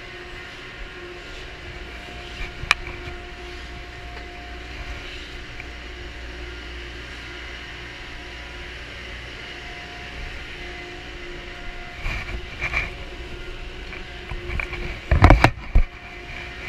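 Gondola lift station machinery running with a steady hum and rumble, with a single sharp click a few seconds in. Near the end come clattering and then several loud knocks as a mountain bike is hung on the gondola cabin's outside bike rack.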